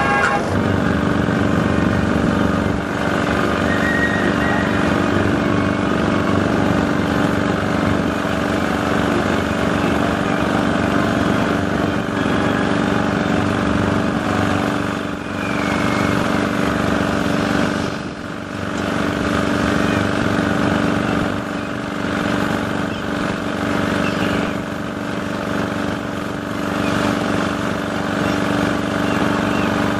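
Steam showman's engine running steadily as it drives its dynamo, with a constant even hum and no speeding up or slowing down.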